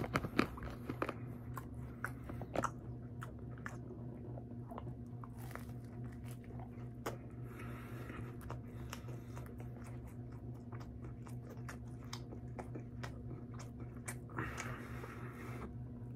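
Close-up eating of a Denny's Moon Over My Hammy sandwich (ham and egg on grilled sourdough): bites with a light crunch of toasted bread and wet chewing, with a few louder clicks in the first few seconds. A steady low hum runs underneath.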